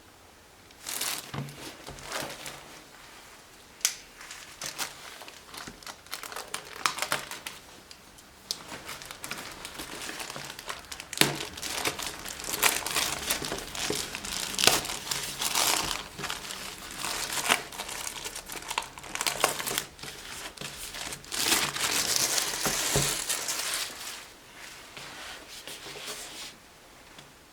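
Packaging crinkling and rustling in irregular bursts as it is unwrapped and handled, with a few sharp clicks along the way.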